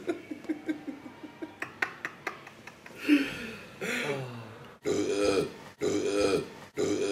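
Men laughing hard: a run of short chuckles, then, from about five seconds in, long laughs in bursts about once a second.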